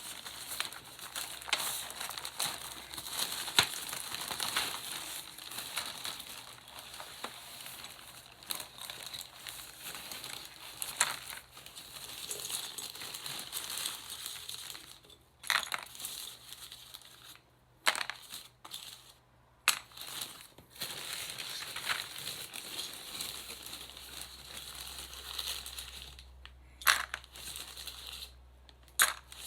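Plastic packaging crinkling and rustling while being handled, with scattered sharp clicks of plastic keycaps knocking together.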